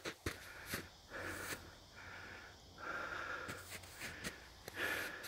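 A hiker's breathing close to the microphone, a breath roughly every second, with a few short sharp clicks and scuffs mixed in.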